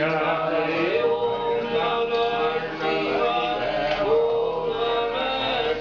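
Voices chanting a Hindu mantra together, with long held notes; the pitch steps up and holds about a second in and again about four seconds in.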